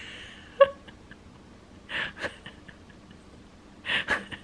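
Soft breaths close to the microphone, a short hazy puff about every two seconds. A single sharp click, the loudest sound, comes about half a second in.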